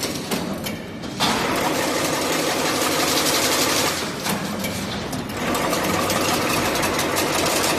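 Servo-driven workshop machine running with a rapid, dense mechanical clatter that eases off briefly near the start and again about halfway through, as if working in cycles.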